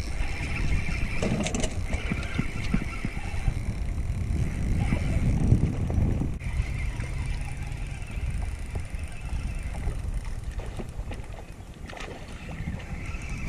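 Spinning reel being wound in stretches, a whirring that starts and stops, while a hooked fish pulls on the bent rod, over a steady low rumble.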